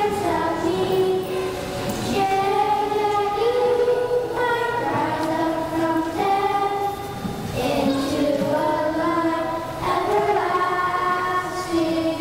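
Children's choir singing, with held notes in phrases that begin about every two to three seconds.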